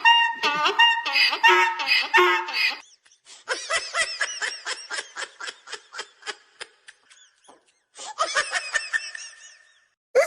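Hearty laughter: first loose laughing, then a long run of quick, short laughs, about four or five a second, and one more burst near the end.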